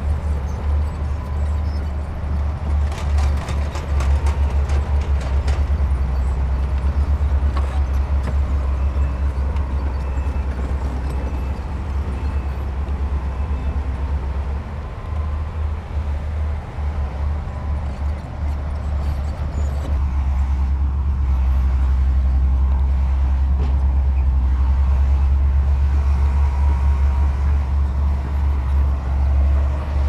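Heavy diesel earthmoving machinery, a bulldozer with dump trucks, running steadily with a deep low engine drone. A cluster of sharp clanks comes about three seconds in, and the engine sound grows a little louder about two-thirds of the way through.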